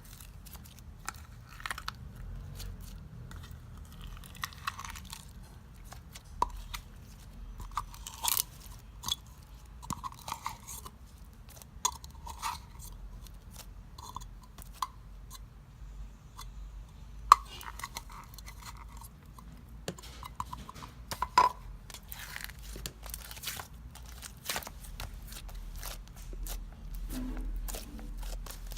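Slime being squeezed and pressed, giving irregular clicks, pops and soft crackles, a few of them much sharper than the rest.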